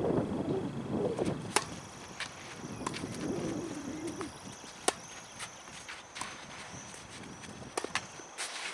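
Tennis ball struck by rackets during a point: sharp pops, the loudest about a second and a half in and near the middle, with fainter knocks of the ball and feet between.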